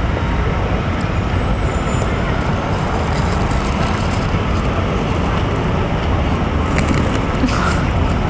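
Steady low rumble of city traffic, with a paper bag rustling near the end.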